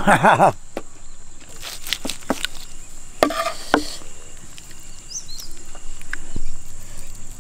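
Outdoor ambience: a steady high-pitched insect drone, with scattered sharp clicks and short rustles, and a brief voice right at the start.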